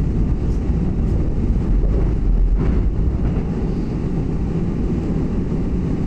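Seoul Subway Line 2 train running on elevated track, heard from inside the car as a steady low rumble of wheels and running gear, with a few faint clicks.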